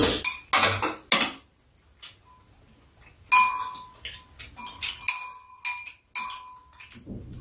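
Metal spoons clinking and scraping against ceramic soup bowls. A few clatters at the start, a short lull, then a run of sharp clinks from about halfway, each with a brief ringing tone.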